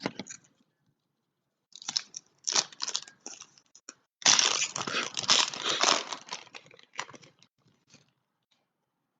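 Foil wrappers of 2014 Topps Chrome football packs being torn open and crinkled. There are short crackling rustles about two seconds in, then a longer, louder tearing crinkle from about four to six seconds, trailing off into a few small crackles.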